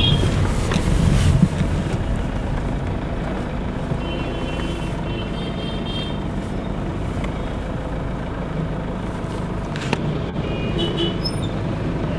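Engine and road noise of a car driving slowly, heard from inside the cabin, with a few brief high tones from the surrounding traffic.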